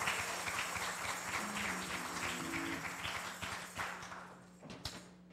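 Congregation clapping, the applause dying away about four seconds in, followed by a couple of sharp knocks.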